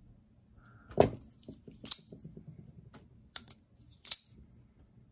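Benchmade Bugout axis-lock folding knife being worked open and shut while its pivot is dialed in: a handful of sharp, separate metallic clicks as the blade locks and snaps closed, the loudest about a second in.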